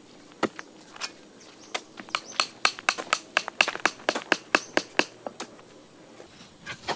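Sharp wooden knocks of a stick tapping a wooden peg into hard dirt. There are a few single knocks, then a quicker run of about four a second, which stops about five and a half seconds in.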